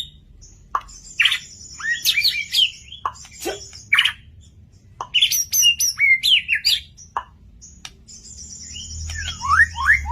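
White-rumped shama (murai batu) singing loudly and vigorously: varied phrases of sweeping whistled notes and high buzzy rattles, repeated every second or two, ending in a quick run of rising notes.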